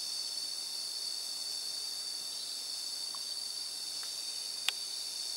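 Steady, high-pitched chorus of insects, holding unbroken throughout, with one sharp click near the end.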